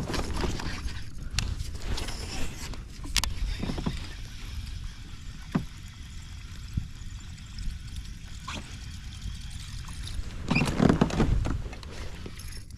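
Water lapping and splashing against a fishing kayak's hull, with scattered small clicks and knocks and a louder splashy stretch about eleven seconds in.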